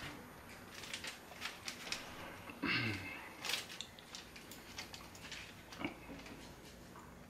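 Knife and fork clicking and scraping on a foil-lined baking sheet as grilled burger patties are cut into pieces. There is one short, louder sound about three seconds in.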